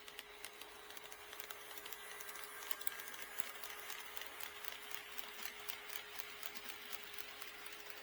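HO scale model train running on KATO Unitrack, its wheels clicking in a steady rhythm over the rail joints. The clicking grows louder over the first few seconds, then slowly fades as the train passes.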